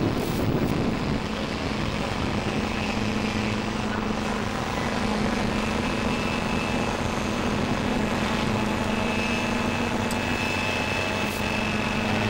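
Steady engine drone with a low hum and a faint high whine, holding an even pitch throughout.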